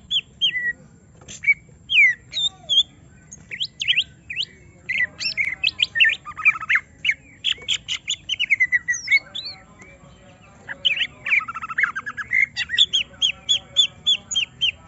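Green leafbird (cucak ijo) singing in an agitated, rapid stream of varied sharp whistles, chirps and harsh notes, as a bird does when provoked by a rival. Near the end it breaks into a run of identical sharp notes, about four a second.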